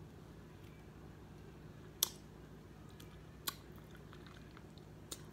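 Boiled crawfish being peeled and eaten by hand: quiet chewing, with three sharp clicks from the shells and mouth about two, three and a half and five seconds in, the first the loudest.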